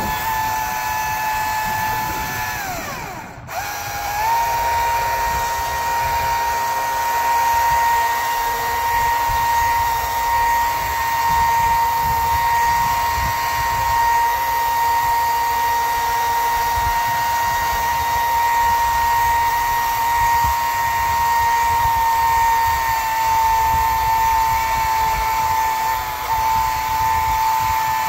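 A power tool's motor running at a steady high speed, with one clear whining pitch. About three seconds in it winds down and stops briefly, then starts again and holds steady.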